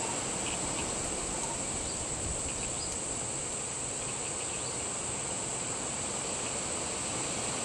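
A steady, high-pitched insect chorus over an even background hiss.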